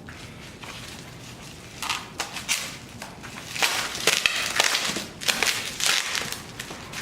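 Packing material being handled and crumpled while parts are unpacked: irregular crinkling and rustling with small sharp clicks, busiest in the middle and toward the end.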